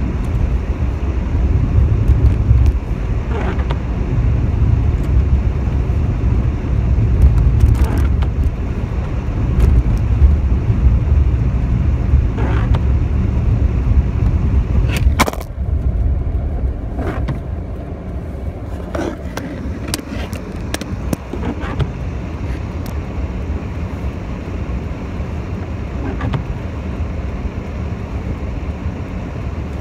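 Car cabin noise on a wet road: low engine and tyre rumble while driving, which drops to a quieter steady idle about halfway through as the car stops. A few sharp clicks are scattered through it.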